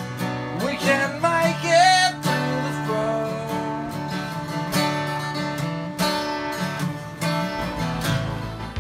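Acoustic guitar strummed in a slow, steady rhythm, about one stroke a second, with a man's voice singing briefly in the first two seconds.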